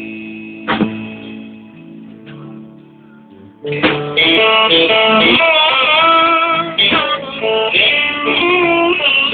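Live blues band playing an instrumental break, led by guitar with long, bending notes. The playing drops to a soft, fading passage, then the full band comes back in loud a little under four seconds in.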